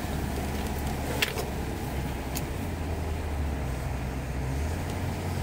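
Inside the cabin of a moving 1979 Ford Granada 3.0 automatic: its V6 engine gives a steady low drone under tyre noise on a wet road. A single sharp click comes about a second in.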